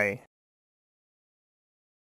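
The tail of a voice saying the letter "Y", fading out about a quarter second in, then silence.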